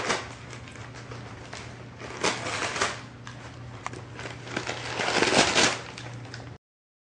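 A pet crunching and chewing a dehydrated haddock fillet treat, in three bouts of crunching with the last the longest.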